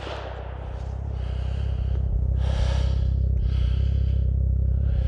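Heavy, gasping breaths, one roughly every second, over a steady low hum.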